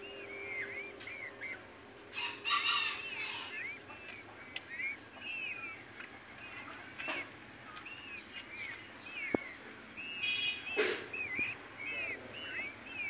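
Young peafowl chicks peeping: a steady run of short, high chirps, with two louder, harsher calls, one about two seconds in and another later on, and a few sharp clicks.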